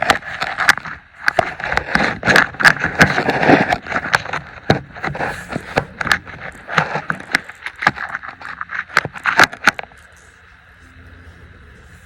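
Metal hand tools clinking and scraping: a fast, irregular run of sharp clicks and knocks with rattling between them, which stops about ten seconds in.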